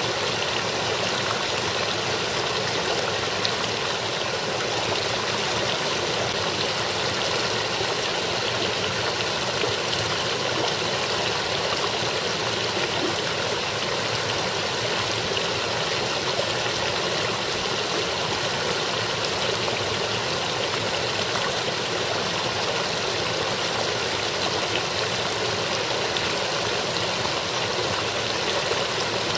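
Partly frozen brook splashing steadily over rocks between shelves of ice and snow.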